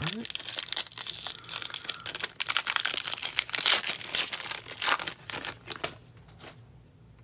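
Shiny foil trading-card pack wrapper being torn open and crinkled by hand, a dense crackle that stops about five and a half seconds in.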